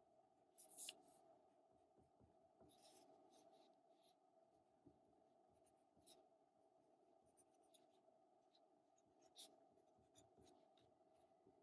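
Near silence: faint room tone with a few soft, irregular clicks and scratches.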